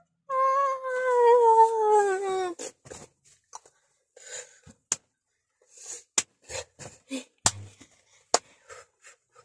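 A girl's voice holding one long sung note for about two seconds, sliding slowly down in pitch. After it come scattered light clicks and knocks.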